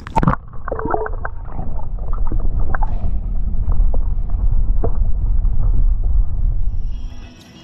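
A splash as the camera goes under the lake surface, then the muffled low rumble of water moving over the submerged camera, with scattered small knocks. The rumble drops away sharply near the end.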